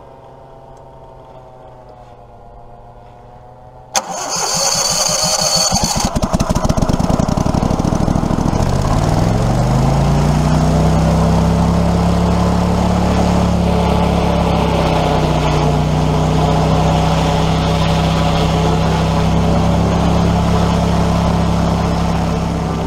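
Four-stroke paramotor engine started about four seconds in, after a cry of "clear prop". It climbs in pitch as it is throttled up, then runs steady at full power for the takeoff roll.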